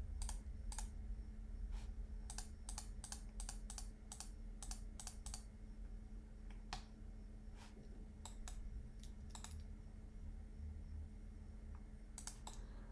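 Computer keyboard keys and mouse buttons clicking in irregular runs, quickest between about two and five seconds in, then sparser, with a couple of quick clicks near the end.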